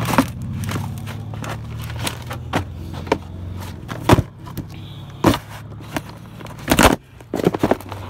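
Cardboard shoe boxes crushed underfoot: sharp crunches and cracks of folding cardboard a second or two apart, coming quicker near the end. A low steady hum lies under them and fades out about seven seconds in.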